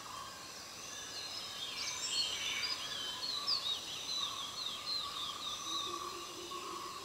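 Forest ambience: steady insect drones, with a bird singing a quick run of chirping notes from about two to five seconds in. A lower droning note joins near the end.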